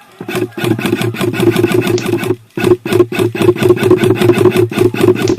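Airsoft electric gun firing long full-auto bursts: rapid clicking over a steady motor whir, with a short break just past two seconds in.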